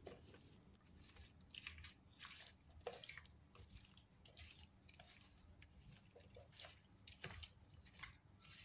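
Faint, irregular wet squelches of a gloved hand squeezing and turning chicken pieces and vegetables in a thick yogurt marinade in a bowl.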